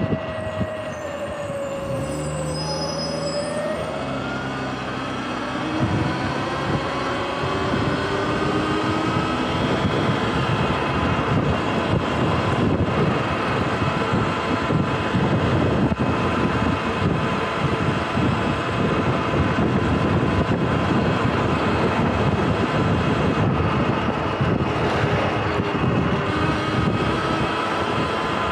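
Sur-Ron electric dirt bike's motor and drivetrain whining under steady road riding, over wind and tyre rush. The whine falls in pitch as the bike eases off, rises again as it speeds up a few seconds in, then holds steady.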